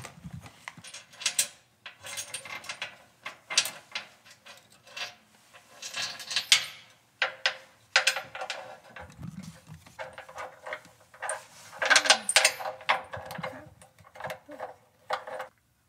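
Small metal mounting hardware clinking and rattling as it is handled, and a steel feed wire scraping through a truck's frame rail: a string of irregular clicks and jangles with short gaps between them.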